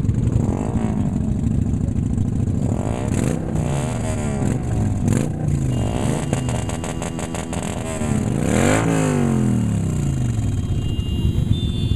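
Several motorcycle engines running together, revved up and down again and again.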